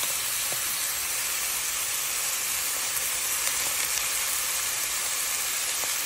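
Ground beef, chorizo sausage and chopped pepper and onion sizzling in a stainless steel skillet on the stove: a steady, even hiss.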